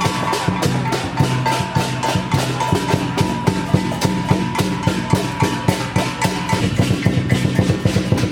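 Percussion music with a fast, even beat of sharp drum and wood-block strokes, over a held high note that stops about six and a half seconds in.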